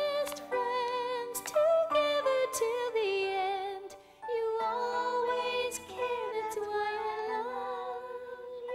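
Music from an original children's sing-along song, a melodic passage between its sung lines.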